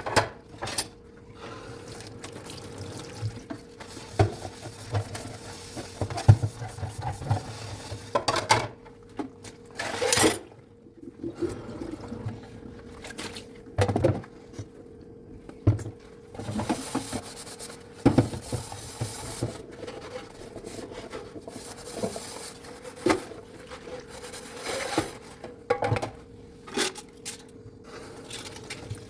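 Dishes being washed by hand in a sink: frequent clinks and knocks of dishes against each other, with water running and splashing at times.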